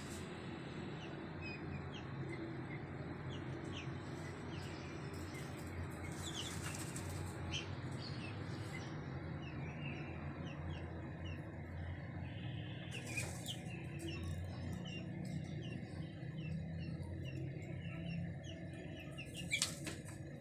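Chukar partridges: many short high chirping notes over a steady low rumble, with a few brief louder rustling bursts, the loudest near the end.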